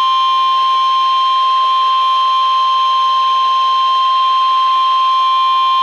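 NOAA Weather Radio's 1050 Hz warning alarm tone: one steady, loud, single-pitched tone over a light hiss of radio static. It is the alert that announces a severe thunderstorm warning.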